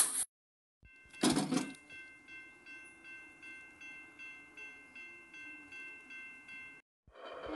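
Railroad level-crossing bell ringing, struck about twice a second over a steady ring, for about five seconds before it stops. Just before the bell starts there is a short, loud burst of noise.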